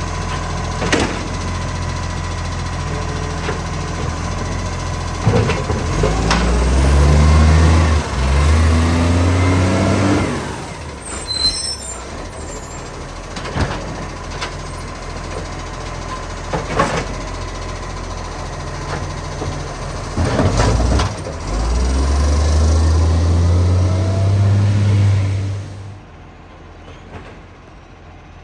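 Garbage truck's diesel engine with a huge exhaust leak, idling and twice revving up for about four seconds before dropping back. Sharp clicks and a brief air hiss come between the revs, and near the end the engine sound drops much quieter.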